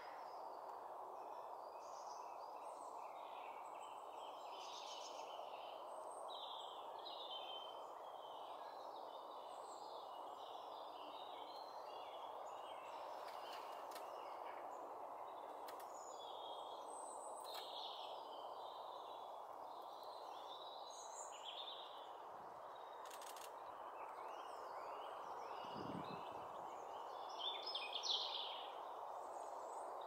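Songbirds chirping and singing over a steady background hiss, with many short phrases throughout and one louder call near the end.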